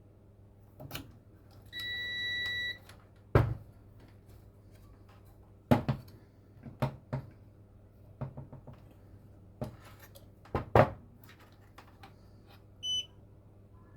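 Digital multimeter beeping: one steady beep lasting about a second, and a shorter, higher beep near the end. Scattered sharp clicks and knocks come between them.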